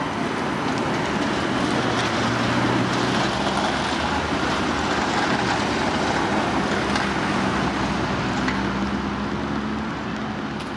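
City street traffic: cars passing close by with tyre and engine noise under a low steady hum, easing off near the end as the road clears.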